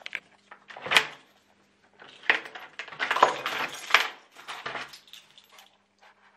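Clinking and clattering of small hard objects being handled: one sharp click about a second in, then a dense run of clinks from about two to four seconds, over a faint steady low hum.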